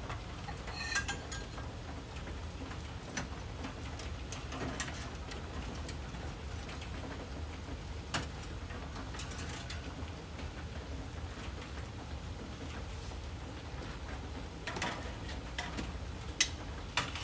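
Scattered clicks and light metallic knocks of tongs against the wire racks of an electric smoker as ribs are handled, over a steady low outdoor rumble. A bird chirps briefly about a second in.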